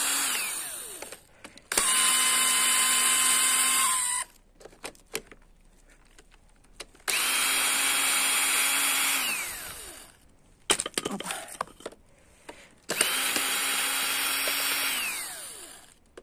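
Cordless drill-driver backing screws out of a wooden crate's slats. It runs with a steady whine three times, each run two to three seconds, plus the tail of a run at the start. Most runs wind down in pitch as the trigger is let go, and there are light clicks and knocks between them.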